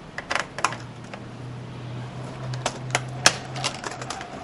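A screwdriver working a keyboard screw out of a laptop's plastic base: a scattered series of small sharp clicks and ticks, with a low steady hum through the middle.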